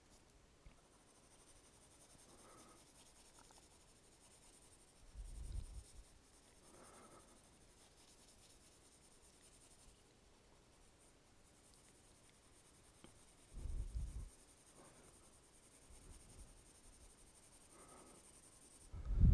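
Graphite pencil (a Kimberly 4B) rubbing across drawing paper in faint, steady shading strokes, with a few soft low thumps from handling, one about five seconds in, one near fourteen seconds and one at the end.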